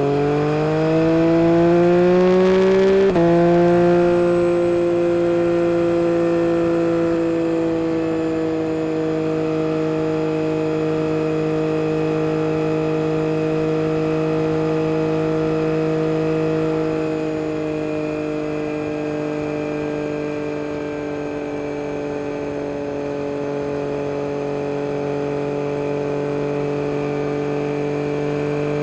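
Yamaha MT-09 SP's three-cylinder engine through an Akrapovic carbon race exhaust, revving up under acceleration for about three seconds, then dropping sharply in pitch as it shifts up a gear. It then holds a steady cruising note, easing off slightly a little past halfway.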